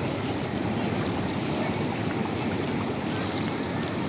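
Ocean surf washing steadily on the shore: an even rushing noise with no distinct single wave crash.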